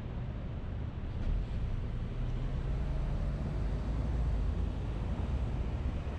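A car driving on city streets: steady low rumble of tyres and engine, swelling a little louder about a second and a half in.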